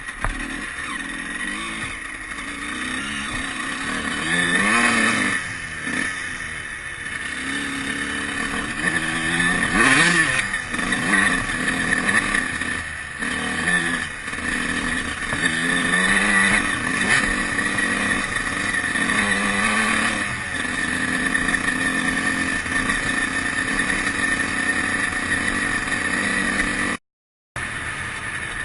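Honda CR125's two-stroke single-cylinder engine under way, revving up and falling back several times as it is ridden. The sound cuts out for a moment near the end.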